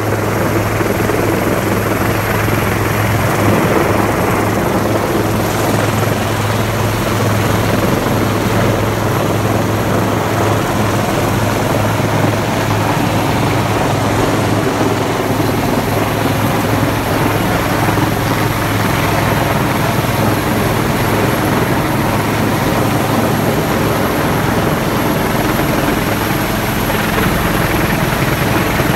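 Rescue helicopter hovering low overhead: loud, steady rotor and engine noise with a deep hum underneath that does not let up.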